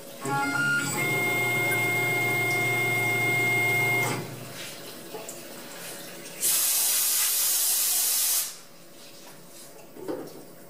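Tormach PCNC personal CNC mill whining: the tone steps up in pitch at first, then holds steady for about three seconds and stops. A couple of seconds later comes a loud spraying hiss that lasts about two seconds.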